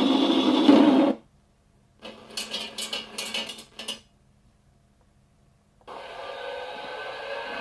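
King Tiger tank sound effects played through an RC tank sound unit's speaker, one effect after another. A loud steady mechanical noise cuts off about a second in, a burst of rapid irregular rattling clicks follows from about two to four seconds in, and after a short pause a whirring mechanical sound starts near six seconds and slowly builds.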